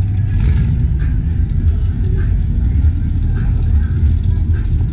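A car engine running with a steady, loud low rumble, with faint voices behind it.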